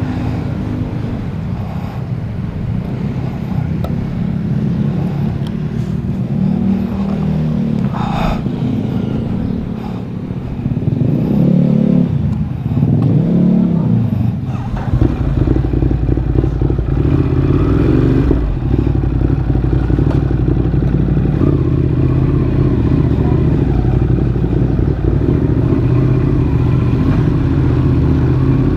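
Ducati motorcycle engine running and revving up and down for the first half, then running steadily and louder from about halfway through.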